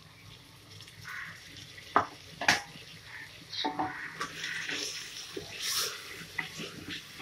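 Ground coconut paste going into a metal pressure cooker, with two sharp knocks about two seconds in. This is followed by a wooden spatula stirring and scraping through the vegetables against the pot.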